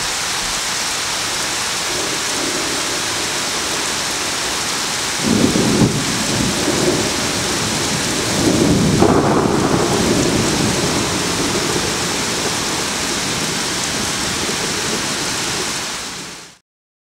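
Heavy rain falling steadily, with rolls of thunder: one about five seconds in and a longer, louder one around nine seconds in. The sound fades out shortly before the end.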